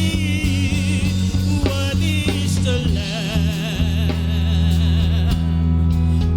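Gospel worship music: sustained low keyboard chords under a wavering melody line, with the chord changing about three seconds in.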